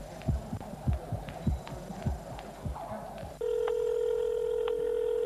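Low thumps repeating evenly, about three a second. About three and a half seconds in they give way to a mobile phone ringing: one long steady electronic note, the start of its ringtone melody.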